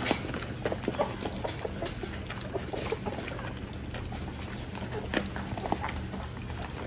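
Litter of three-week-old American Bully puppies lapping and slurping wet puppy mush from a tray: many small wet smacks and clicks, with a low steady hum underneath.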